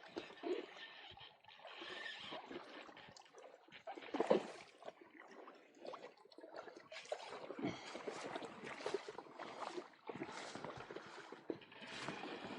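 Shallow water sloshing and trickling in uneven swells, with small clicks and knocks scattered through and one louder bump about four seconds in.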